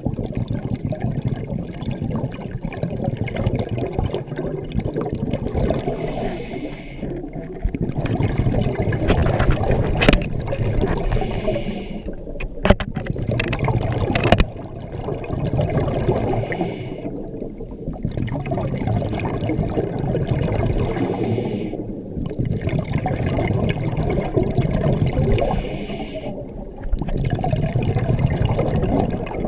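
Scuba diver breathing through a regulator, heard underwater through a GoPro housing. Bubbly, gurgling exhalations alternate with hissing inhalations every four to five seconds, with a few sharp clicks about halfway through.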